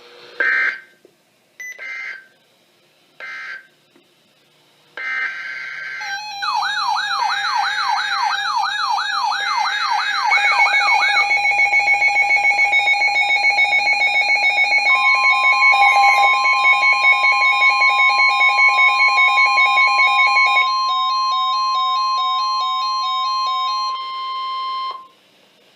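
NOAA Weather Radio alert sequence: three short buzzy data bursts, then another about five seconds in. After that, several weather radios go into alarm together, a fast warbling siren, a higher warble and on-off beeping layered on one another. The broadcast's long steady warning tone joins halfway through, and everything cuts off shortly before the end.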